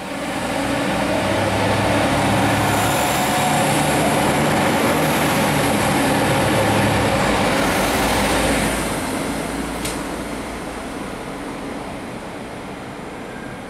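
ÖBB Cityjet electric multiple unit running past along the platform: steady rolling and motor noise with a low hum, fading away after about nine seconds. A single sharp click comes about ten seconds in.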